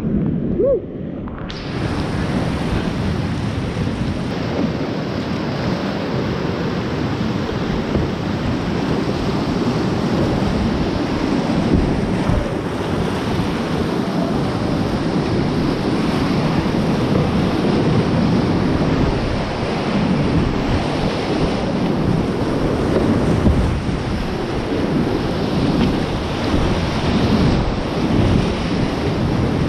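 Whitewater rapids of a river running at about 600 cfs rush loudly all around a kayak, heard up close. The sound is dulled for about the first second and a half, then opens up and stays a steady roar of churning water.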